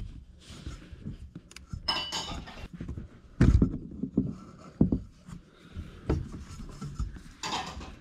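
Plastic clicks, knocks and scrapes as a dishwasher's pressure sensor assembly is worked out of its mount by hand, the loudest knock about three and a half seconds in.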